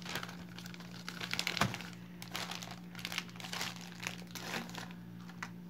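Plastic bag crinkling and crackling as it is handled, in a run of quick irregular crackles, over a steady low hum.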